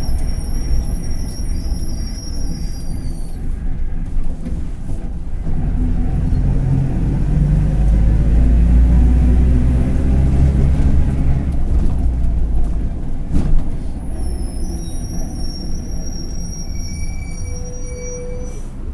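Mercedes-Benz OF-1721 BlueTec 5 city bus diesel engine pulling under load, rising in pitch and growing louder for several seconds, then easing off after a sharp click about thirteen seconds in. A bearing on the bus is growling ("rolamento roncando").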